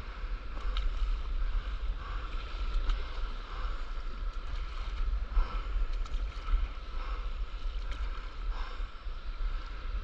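Wind noise buffeting the microphone over water sloshing and lapping against a stand-up paddleboard on the open sea.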